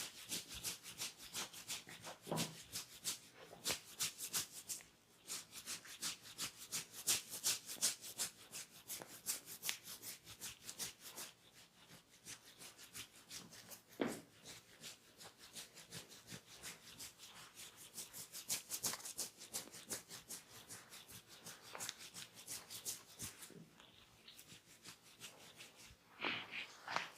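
Hands rubbing and scratching during a head massage: fast scratchy strokes, several a second, in runs broken by short pauses.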